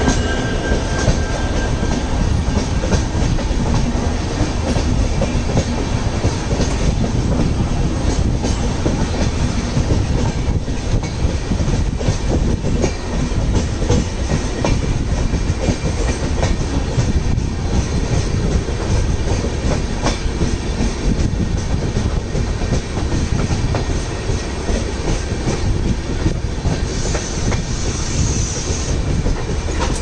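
Train running along the track: a steady rumble of wheels on rails with scattered clickety-clack knocks over the rail joints, and a short higher hiss near the end.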